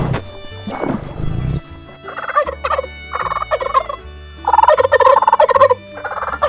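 Turkey gobbling: a series of rapid, rattling gobbles starting about two seconds in, the longest and loudest near the middle.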